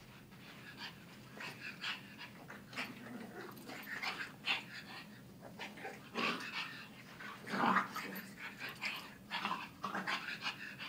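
Pug and shar pei puppies play-fighting, with short, irregular growls throughout; the loudest comes about two-thirds of the way through.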